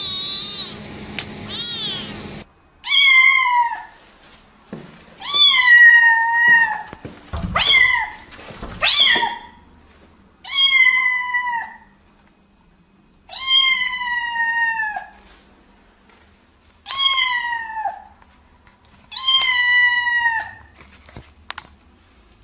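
Kittens meowing: a few short, high mews, then about eight loud, drawn-out meows, each about a second long and falling slightly in pitch, coming every two seconds or so.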